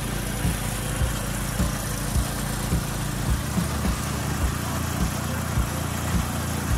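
Small riding lawn mower engine running steadily at low speed while the mower drives across grass, its mowing deck not engaged. Regular low thumps come about twice a second over the engine note.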